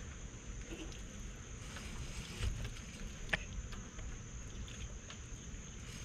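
Steady, high-pitched insect buzz, with a soft thump about two and a half seconds in and a sharp click a little after three seconds.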